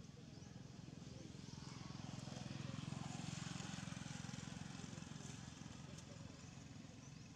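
A motor engine's low, pulsing drone that grows louder to a peak about three seconds in and then fades, as a vehicle passing by.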